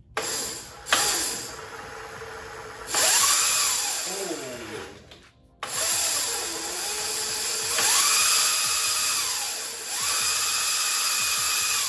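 Kunray 2000 W 48 V brushless motor spinning the raised rear wheel of a Razor MX650 through its chain on a first test run. Its whine rises and falls in pitch over several throttle pulls, with a brief stop about five seconds in, and is held at a steady high pitch near the end.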